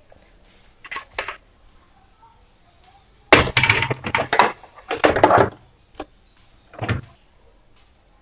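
White plastic extension table of a Usha Janome Dream Maker 120 sewing machine being handled and slid onto the machine's free arm: a couple of light knocks about a second in, then louder plastic rattling and scraping through the middle, and a last knock near the end.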